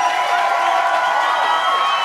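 A crowd cheering and shouting, many voices at once in a steady, loud din.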